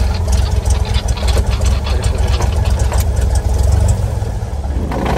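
Cessna 172S Skyhawk SP's four-cylinder Lycoming engine running at low power with a steady low drone, heard from inside the cabin. The drone weakens about four seconds in.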